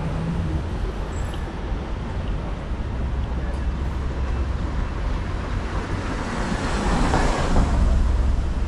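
Road traffic noise on a city street, a steady rumble of passing cars, with one vehicle passing close by and growing louder near the end.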